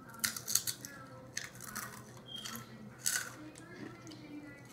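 Close-up biting and crunching of a red rolled tortilla chip (Takis): crisp crackling crunches in bursts, right at the start, about a second and a half in, and again about three seconds in.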